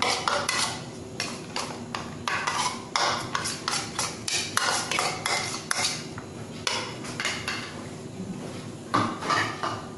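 Metal spoon clicking and scraping against bowls while fresh baker's yeast is crumbled into a plastic mixing bowl: a quick, uneven run of small taps and scrapes for about six seconds, then a couple of separate knocks near the end.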